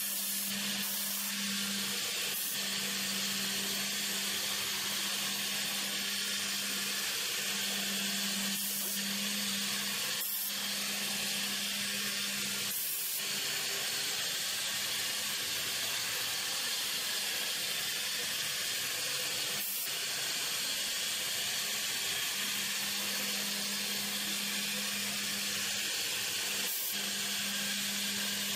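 A CNC router's spindle running steadily as its small bit mills a circular pocket into MDF, a steady high hiss with a low hum that drops out for several seconds in the middle and comes back.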